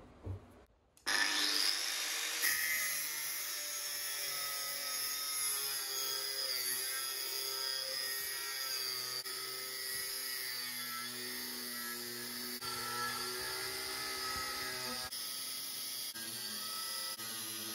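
Angle grinder with an abrasive disc starting up about a second in and cutting a steel knife blank clamped in a vise, a steady loud whine and hiss whose pitch shifts as the disc bites into the metal.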